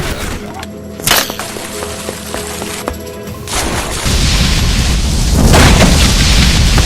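A layered action sound-effect mix. A sharp bang comes about a second in over soft held musical tones, then from about halfway a loud rumbling blast sets in and swells again near the end.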